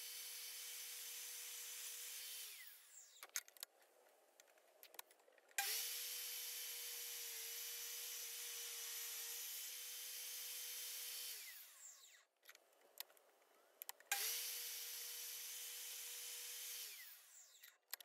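A table saw's motor and blade run three times in a row, each with a steady whine over a hissing spin. The first run is already going and ends a couple of seconds in. The second starts about five seconds in and runs about six seconds. The third runs for about three seconds near the end. Each run ends in a falling wind-down as the saw is switched off, with a few clicks in the pauses.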